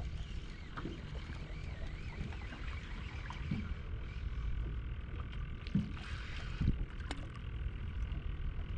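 Wind buffeting the microphone over choppy water around a small boat, a steady low rumble, with a few light knocks about six and seven seconds in.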